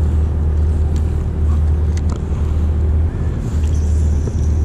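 Steady low rumble of a party boat's engine running, with a few faint clicks over it.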